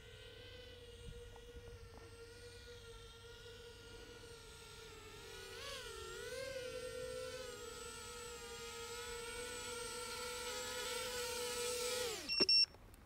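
Flywoo Explorer LR 4-inch FPV quadcopter's motors and propellers whining steadily as it flies low and comes in, growing louder. About twelve seconds in the whine drops sharply in pitch and stops as the motors spin down, followed by a couple of short beeps.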